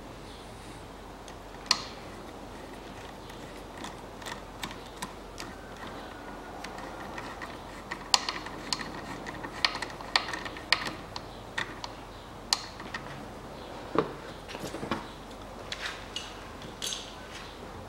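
Scattered small metallic clicks and ticks of a screwdriver tightening a worm-drive hose clamp on a power steering reservoir hose, coming in irregular clusters.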